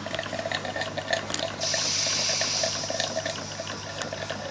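Cotswold Heritage Perseus model steam engine running steadily, its exhaust chuffing rapidly and evenly through a chuff pot. A louder, higher steam-like hiss joins about one and a half seconds in and stops about two seconds later.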